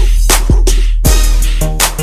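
Loud hip-hop-style music with a heavy bass and a steady drum beat.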